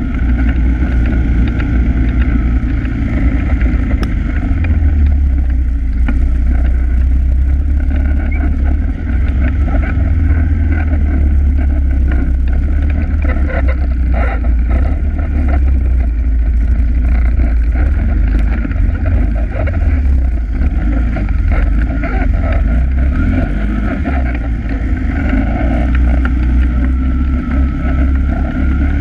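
ATV engine running steadily at trail-riding speed, heard on board the quad as a loud, even low drone.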